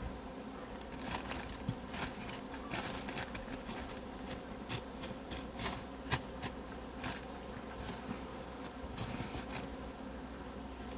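Honeybees buzzing around an open hive in a steady hum, with plastic film crinkling in short bursts as it is pressed down over the frames.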